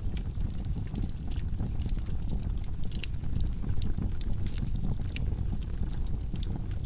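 Wood logs burning in a fireplace: a steady low rumble of flames with irregular sharp crackles and pops.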